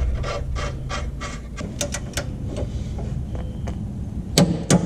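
Hand socket wrench ratcheting in irregular runs of sharp clicks, about five a second at first and then more sparsely, as a large suspension bolt is run in. A steady low hum runs underneath.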